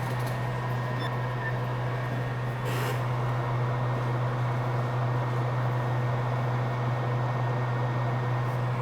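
A steady low machine hum with a faint hiss behind it, level and unchanging.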